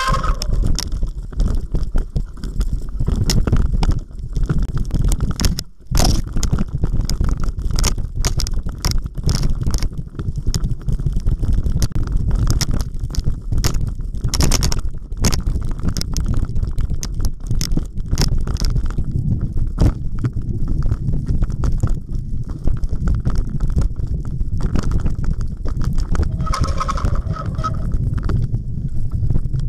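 Wind rumble on the camera's microphone and the rattle and clatter of a Specialized Stumpjumper 6Fattie mountain bike rolling fast over wet forest singletrack, with frequent knocks as the tyres hit roots and stones. Near the end there is a brief squeal as the bike slows.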